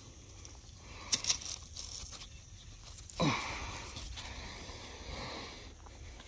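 Zucchini plant leaves and vine rustling and tearing as a zucchini is picked by hand. There are a few sharp clicks about a second in and a sudden crack a little after three seconds, then a few seconds of rustling.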